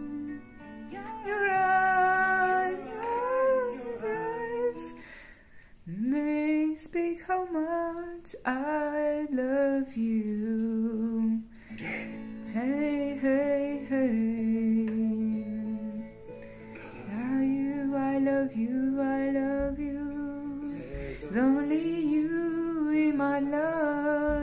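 A slow love song playing: a voice singing a melody with long held notes over plucked guitar.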